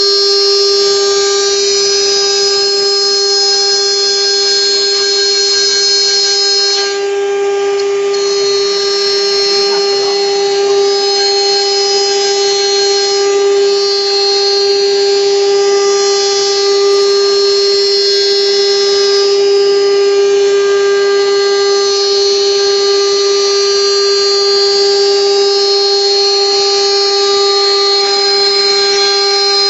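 YuanNuo CNC router spindle running with a loud, steady high-pitched whine while its bit mills a groove into a block of wood.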